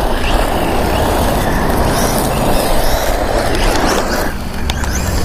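Wind buffeting the microphone over a 1/10-scale brushless RC short-course truck driving across loose infield dirt: a steady rushing noise that eases about four seconds in.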